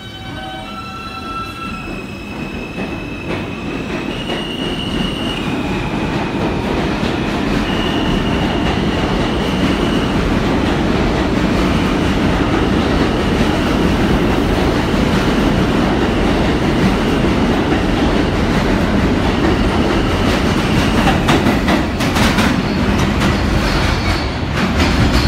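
R160 subway train pulling out of the station. Its AC traction inverters give a whine that steps up in pitch as it starts moving. The noise then builds to a steady rumble of wheels, with wheel squeal and a cluster of clacks over the rail joints near the end as the last cars pass.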